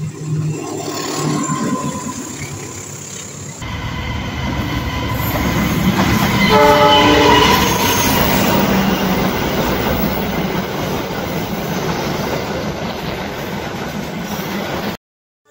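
KAI diesel locomotive and passenger coaches passing close, the wheels rumbling and clattering over the rails. A horn sounds briefly about six and a half seconds in. The sound cuts off abruptly just before the end.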